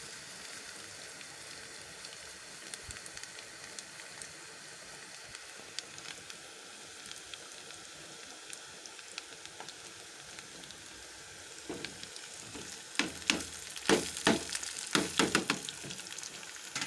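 Onions frying in oil in a pan, a steady sizzle. About twelve seconds in comes a run of quick, sharp scraping strokes.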